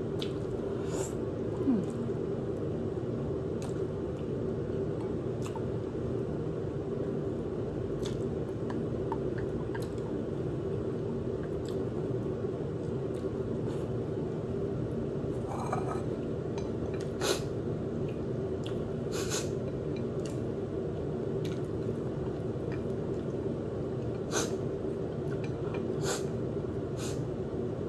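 Eating a bowl of spicy instant noodles: soft chewing and mouth sounds, with a dozen or so scattered sharp clicks of a utensil against the bowl, over a steady background hum.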